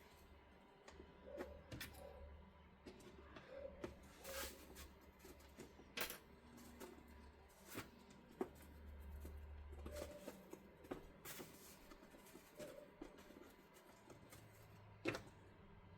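Faint, scattered clicks and crinkles of stiff X-Pac laminated fabric being handled at the bench, over a low steady hum; the sharpest click comes near the end.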